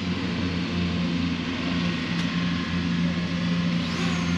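A steady engine hum, from a ride-on mower. About four seconds in, a rising whine levels off high as the Fimi X8 Mini quadcopter's motors spin up for its automatic take-off.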